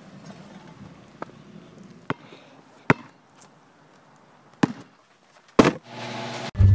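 A basketball bouncing on concrete: about half a dozen separate sharp bounces at uneven intervals, the loudest near the end.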